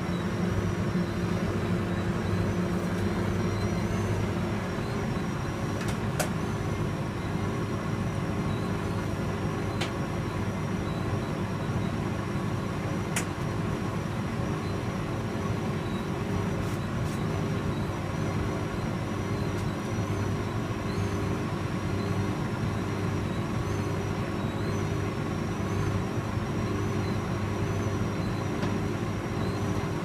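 Hotpoint 9310A tumble dryer running: a steady motor hum with the drum turning and tumbling the load. A faint high whine wavers throughout, and a few sharp clicks come now and then.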